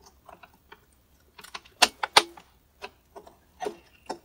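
Small metal clicks and clatter of needle-nose pliers working wires and connectors off a circuit board, with two sharp snaps about two seconds in.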